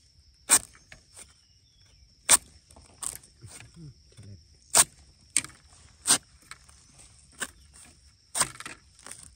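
A long-handled digging spade striking down into soil and roots around a wild bamboo shoot: a run of about eight sharp chopping blows, roughly one a second. A steady high insect drone runs underneath.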